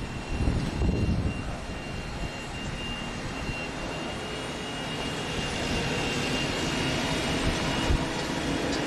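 Korean Air Boeing 777's jet engines running, a steady rush with a thin high whine, growing gradually louder through the second half.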